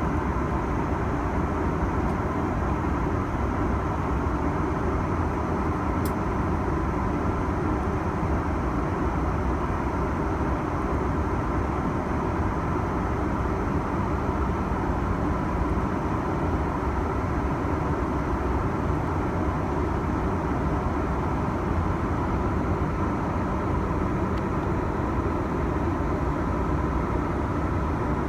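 Steady cabin noise of a Boeing 737-900 airliner in level flight: the even rush of air and engine noise heard from a window seat, holding constant throughout.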